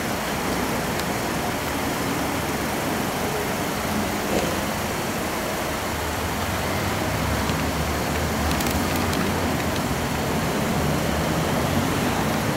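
Steady noise with a low hum underneath and a few faint clicks.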